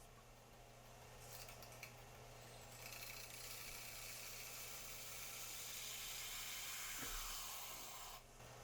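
Harbor Freight 4x36 inch benchtop belt sander running with a steady low hum while a survival knife blade is held to the belt to put an edge on it. The hiss of steel on the abrasive belt comes in a short pass about a second in, then a longer one from about three seconds in that stops shortly before the end.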